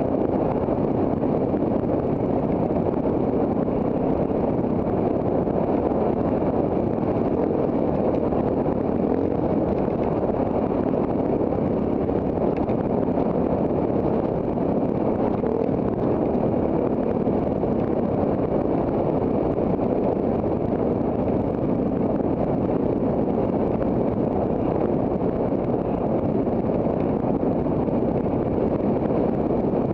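Off-road trail motorcycle engine running steadily under way, mixed with wind noise on the camera's microphone.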